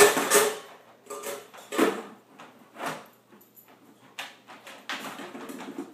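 Puppy knocking a cup around inside a wire dog crate: a series of separate clatters and rattles, the loudest at the start, then softer knocks about every second and a run of quick light ticks near the end.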